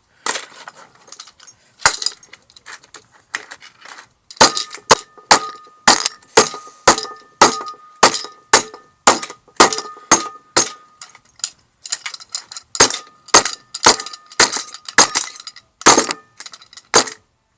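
Repeated hard blows on a smartphone to break its casing open: a few scattered knocks, then a steady run of sharp clacking strikes about two a second, each with a brief ring.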